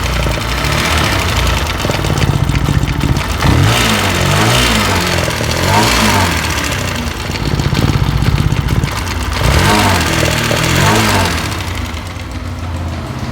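Keeway RKR 165 motorcycle engine running, blipped up and back down several times between stretches of idle. The engine has a mechanical noise that the mechanic puts down to a worn cam rocker and timing chain.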